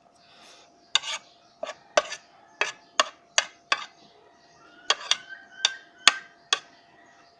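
Cutlery clinking against a dish, about fourteen sharp taps in two clusters, a few of them ringing briefly.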